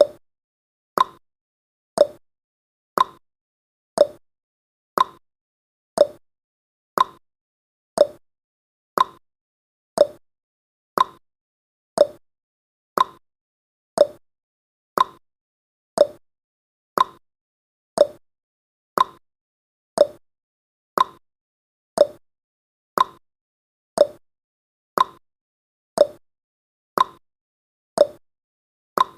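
Countdown timer's ticking sound effect: one short, sharp tick every second, evenly spaced like a clock.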